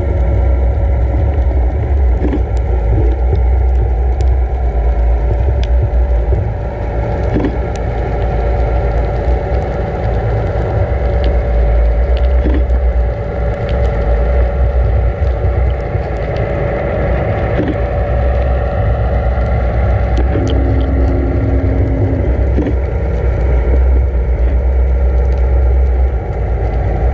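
Towing vessel's engine and propeller heard underwater through a towed camera's housing: a steady low drone with a faint steady tone above it, with scattered sharp clicks and a short steady tone about three-quarters of the way in.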